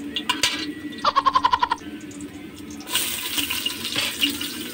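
A metal spatula scraping across a grooved wok, a quick run of about ten ticks a second near the start; then, about three seconds in, a loud sizzle as sliced onions go into the hot oil with the garlic.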